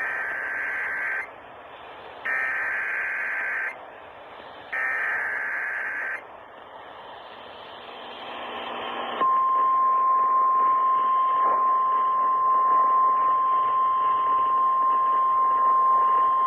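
Emergency Alert System signal over the radio: three short bursts of SAME header data tones, then about nine seconds in a steady single-pitch attention tone that holds to the end, all over a background of radio static hiss. It signals an incoming emergency alert, here a severe thunderstorm warning.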